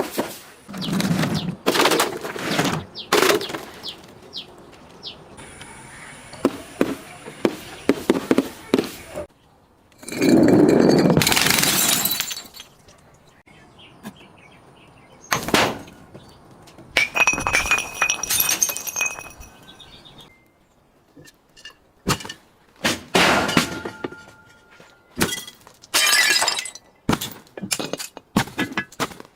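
Glass bottles being smashed and crushed: a series of separate cracking, crunching bursts with short pauses between them, some followed by a bright ringing of glass. One longer, louder crunch comes about ten seconds in, and a quick run of short breaks near the end.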